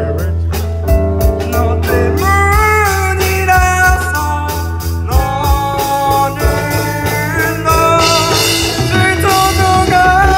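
A student rock band playing live: a male lead vocal over electric guitars, bass guitar and a drum kit, with the singing coming in about two seconds in.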